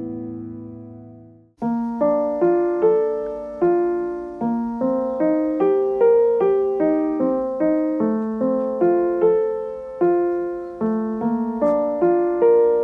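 Background piano music. A held chord fades out, then after a brief break about a second and a half in, a melody of separate notes, each struck and dying away.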